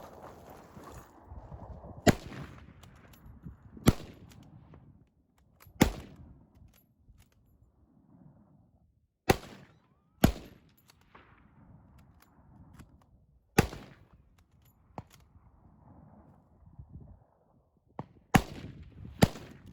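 Gunshots, about eight loud single shots spaced irregularly from under a second to a few seconds apart, each with a short echoing tail, with a few fainter pops between them.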